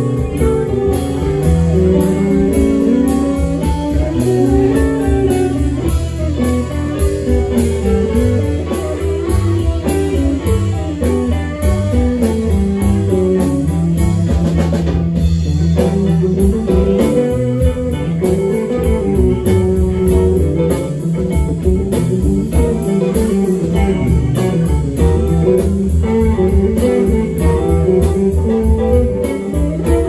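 Live rock band playing: electric guitars over bass, drum kit and keyboard, with no vocals.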